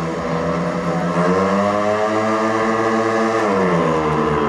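Speedway motorcycles' 500 cc single-cylinder engines racing round the track, their pitch rising about a second in, holding high, then dropping about three and a half seconds in.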